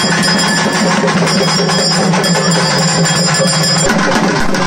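Temple bells ringing rapidly and continuously during the lamp-waving (aarti) offering, a dense jangling with steady ringing tones over a low drone. About four seconds in the ringing breaks off and music with voices takes over.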